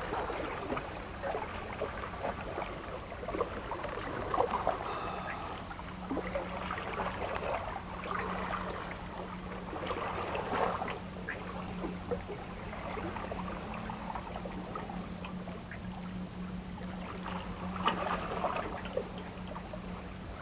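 Sea water washing and trickling among breakwater rocks, with small clicks and rustles of a needlefish being handled and unhooked from a metal jig. A steady low hum joins about six seconds in.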